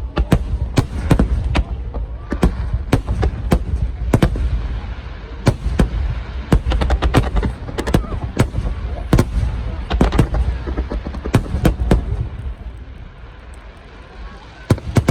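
Fireworks going off in a rapid, irregular run of bangs and crackles. They ease off briefly near the end, then a fast cluster of bangs starts again.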